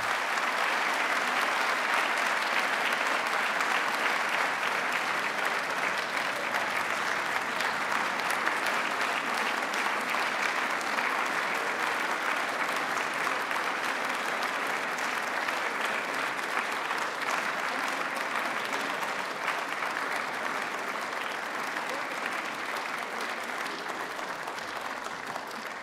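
An audience applauding: long, dense applause that holds steady and then slowly tapers off near the end.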